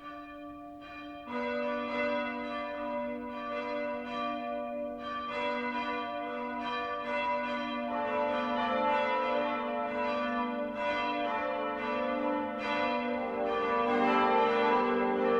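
The great peal of St. Andreas' church bells ringing, the bells coming in one after another. A deeper bell joins about a second in, more join around halfway and near the end, and the overlapping strokes grow fuller and louder.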